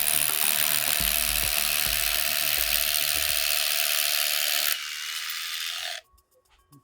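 A power drill running steadily, driving screws to fix the conduit to the wall. It drops a little in level near the end, then cuts off suddenly. Background music plays underneath.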